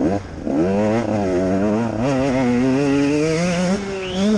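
Enduro motorcycle engine under throttle, heard from on board the bike. It blips at the start, dips, then climbs in pitch and wavers up and down. Near the end it drops briefly and picks up again.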